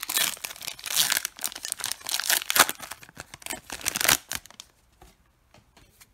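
Foil wrapper of a Panini Contenders trading-card pack being torn open and crinkled as the cards are pulled out. The crackling runs for about four seconds and then stops, leaving a few faint ticks.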